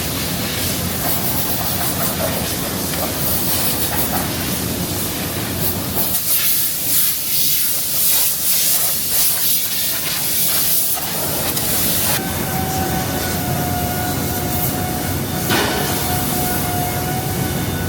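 Industrial workshop machinery noise: a steady, loud hissing din, with a steady whine joining about twelve seconds in.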